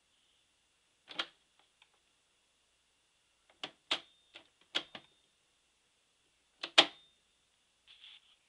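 Sony TC-105A reel-to-reel tape recorder's mechanical function lever being switched: sharp plastic-and-metal clacks, one about a second in, then three pairs of clacks, the last pair the loudest.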